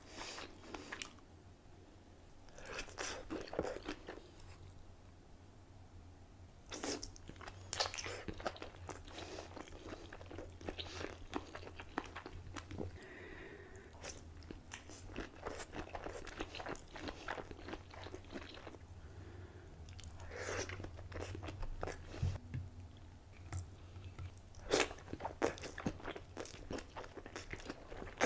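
Close-miked eating of a seafood boil: crunching, biting and chewing in irregular bursts, with brief pauses between mouthfuls.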